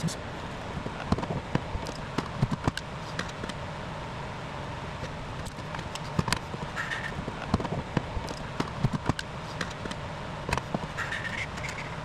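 Irregular small clicks and rattles of plastic wiring-harness connectors and clips being worked loose inside a car door, with a couple of brief squeaks, over a steady background hum.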